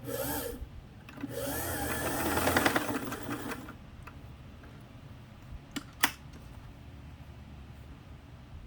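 Singer 327K sewing machine running briefly, stitching with its motor speeding up and slowing before stopping a little over three seconds in. Then come two sharp clicks about six seconds in.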